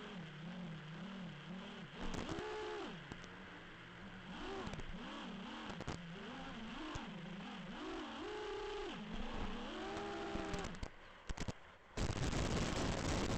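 FPV quadcopter's electric motors whining, the pitch swinging up and down again and again with the throttle. The whine cuts out about 11 seconds in, and a louder rough hiss follows near the end.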